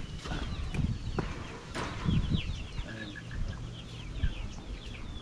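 Chickens clucking and chirping in a run of quick high calls, with a few sharp knocks in the first two seconds.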